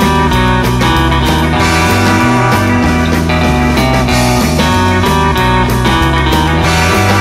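Instrumental rock band recording: electric lead and rhythm guitars over bass guitar and drums, the bass line stepping from note to note under a steady drum beat.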